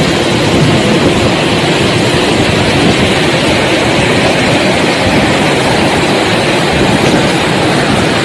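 Loud, steady rush of water from waterfalls pouring into a fast-flowing river.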